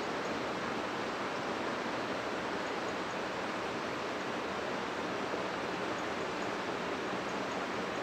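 Steady, even background hiss with no change and no distinct events.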